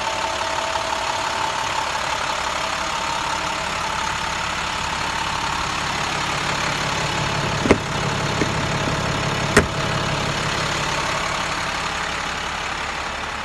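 International 4300 DuraStar truck's diesel engine idling steadily, with two sharp clicks about two seconds apart near the middle.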